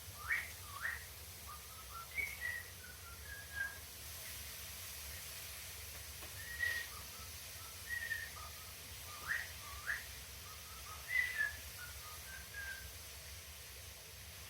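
Cockatiel whistling in scattered short notes and quick upward-sweeping chirps, every second or so.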